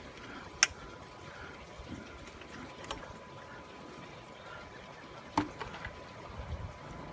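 Pool water siphoning out through a vacuum hose, a faint steady trickling rush, broken by three short sharp clicks, the first the loudest.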